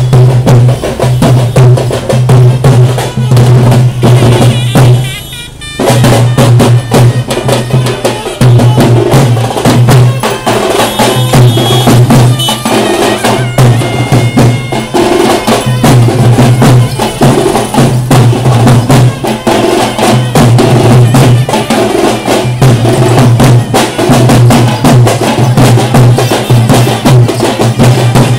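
A street drum troupe plays a fast, loud rhythm on large metal-shelled barrel drums, the deep beats pulsing in a steady pattern. The drumming drops out briefly about five seconds in and then resumes.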